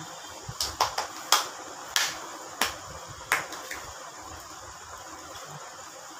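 A run of sharp clicks and taps, about seven in the first four seconds, as a school bag and notebook are handled; after that only faint room noise.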